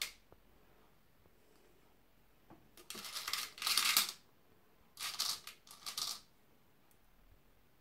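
Cake sprinkles rattling in their container as they are shaken out onto cupcakes, in three bursts: a longer one about three seconds in, then two short ones a second or two later.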